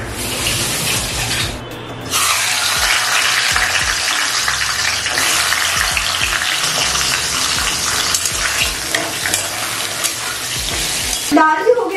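Fish head frying in hot oil in a pan: a loud, steady sizzle that jumps up about two seconds in and holds.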